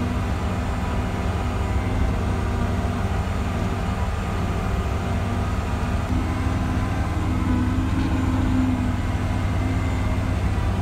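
Skid-steer loader's engine running steadily as it drives, a constant low drone.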